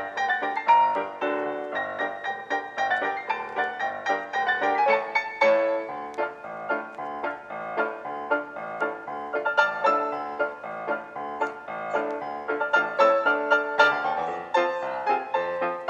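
Background piano music, a steady stream of quick notes.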